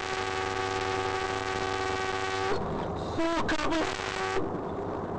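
A vehicle horn sounding one long steady blast that cuts off about two and a half seconds in, over a low engine hum.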